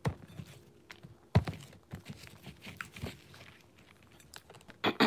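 Chewing dry, powdery white chunks close to the microphone: scattered sharp crunches and clicks, the strongest about a second and a half in, among quieter mouth sounds.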